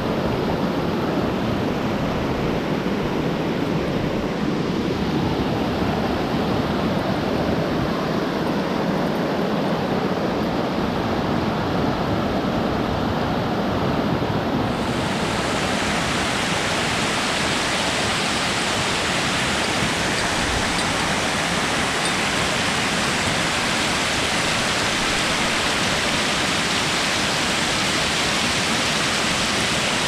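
Mountain creek rushing over rocks and small cascades, a steady loud rush of water. About halfway through it turns suddenly brighter and hissier.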